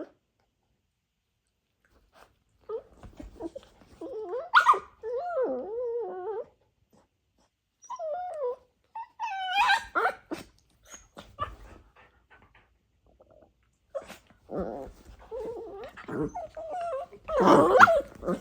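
Dachshund puppies play-wrestling: bouts of wavering play growls and whines, mixed with short scuffling clicks. The sounds start a couple of seconds in, and the loudest burst comes near the end.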